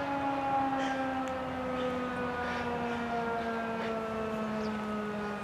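Outdoor tornado warning siren winding down, its tone and overtones gliding slowly and steadily lower.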